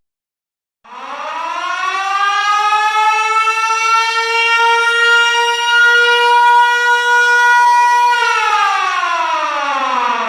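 Military air-raid siren sounding one wail: after a short silence it winds up from a low pitch to a steady high tone, holds it for about four seconds, then winds down near the end.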